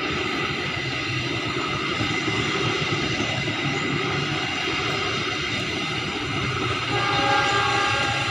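Passenger train coaches rolling past on the rails, a steady rolling noise with thin steady high tones over it. A train horn sounds briefly near the end.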